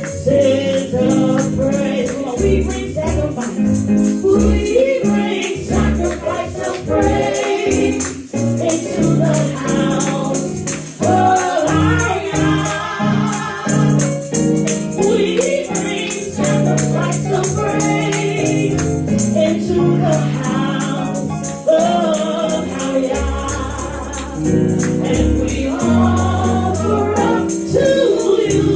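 Congregational gospel worship music: a choir and congregation singing with a band of sustained chords and a bass line, and a tambourine or shaker keeping the beat.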